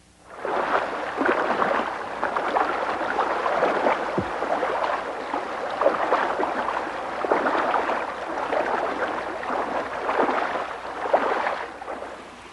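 Water of a stream rushing and gurgling steadily, fading down near the end.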